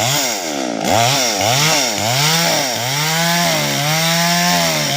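Two-stroke chainsaw felling a tree. The engine is revved up and down about five times, then held at a steady high speed.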